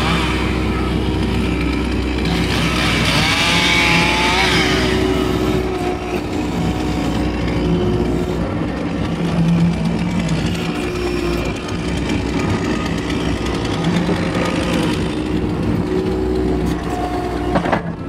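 Case skid steer's diesel engine running steadily under hydraulic load, heard from inside the cab while the log grapple is worked. About three seconds in, a higher wavering whine rises and falls over the engine.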